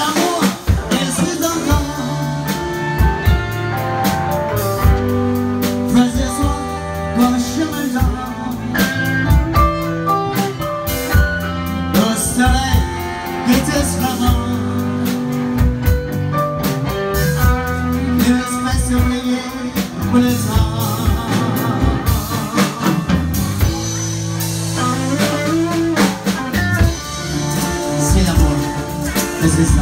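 Live band playing amplified music: a male singer singing into a microphone over electric guitar, bass and drum kit.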